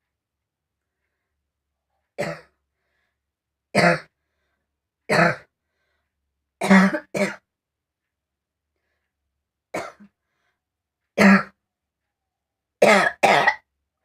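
A person coughing deliberately for a cough challenge: about nine short, loud coughs spaced a second or more apart, some coming in quick pairs.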